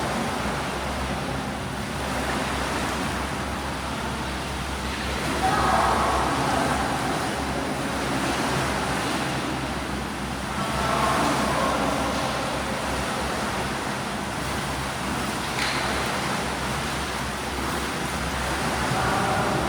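Swimming pool ambience: a steady low hum under a wash of water noise from swimmers splashing, swelling a little about every five or six seconds.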